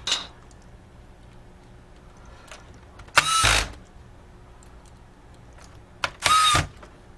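Electric screwdriver driving small laptop keyboard mounting screws: two short whirring runs of about half a second each, the motor spinning up in pitch then holding, about three seconds apart.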